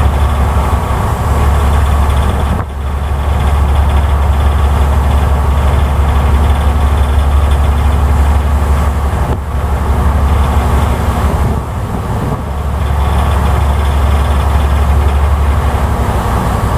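A ferry's engines drone steadily: a loud, low rumble with a steady hum above it. It dips briefly in level a few times.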